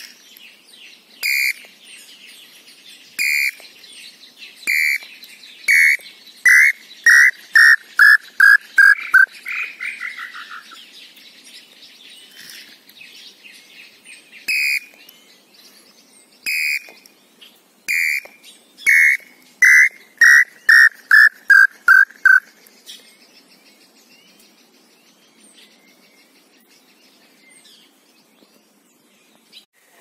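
Tataupa tinamou (lambu pé-roxo) song, given twice. Each phrase is a few spaced whistled notes that break into a quickening run of shorter notes, stepping down in pitch.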